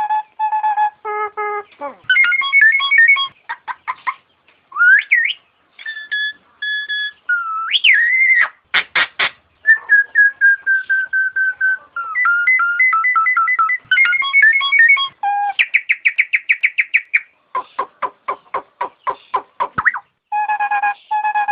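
Nias hill myna calling in a varied run of clear, loud whistles: held piping notes, rising and falling glides, and fast strings of short repeated notes.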